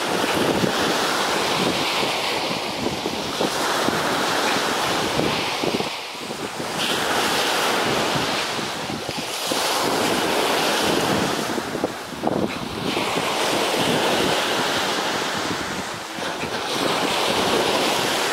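Ocean surf breaking on the beach, swelling and easing every few seconds, with wind buffeting the microphone.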